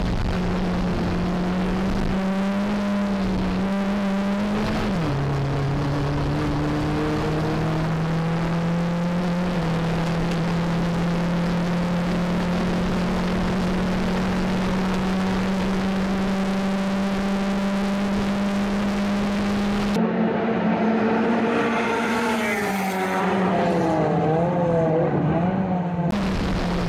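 BMW 318ti Cup race car's four-cylinder engine heard from inside the stripped cabin, held at high revs under load. About five seconds in the pitch drops at a gear change, then slowly climbs again. Near the end a stretch of race cars passing on the straight is heard from the trackside before the in-car sound returns.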